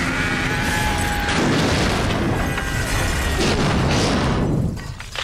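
Cartoon sound effect of a light aircraft crashing into a house roof and exploding: a loud, sustained boom with rumbling debris that dies away near the end.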